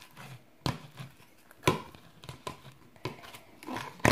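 Hands squeezing and pressing clear slime in a plastic bowl, giving short wet pops and clicks about once a second, the sharpest one near the end.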